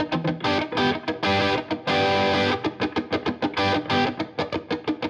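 Background music: guitar chords strummed in a quick, even rhythm.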